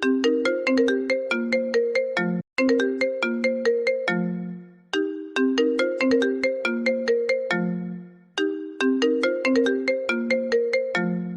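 iPhone ringtone playing: a short melody of quick struck notes, each ringing out briefly, repeated over and over. Most repeats end on a longer low note.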